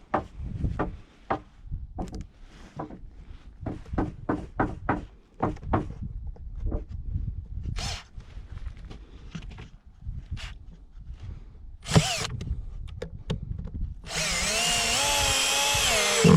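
A series of knocks and taps, with one louder knock about twelve seconds in. About two seconds before the end a power tool starts and runs steadily, its pitch dipping briefly as it works.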